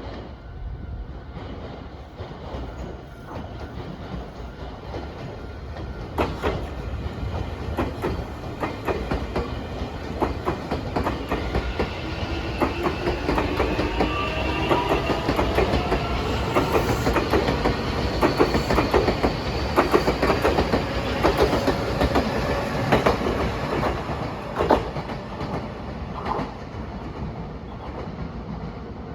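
Nankai Main Line electric train passing, its wheels clicking over the rail joints in a quick run of knocks that builds to its loudest in the middle and then fades. A whine rising in pitch sounds through the middle of the pass.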